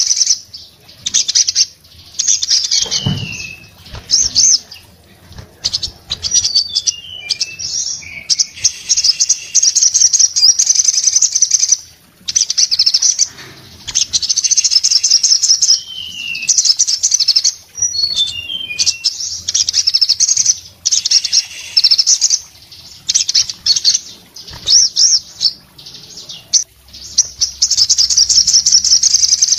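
Male olive-backed sunbird (sogon) singing hard in a cage: bursts of very rapid, high, buzzing trills, several seconds each, broken by short gaps and quick falling notes. A brief wing flutter with a knock comes about three seconds in.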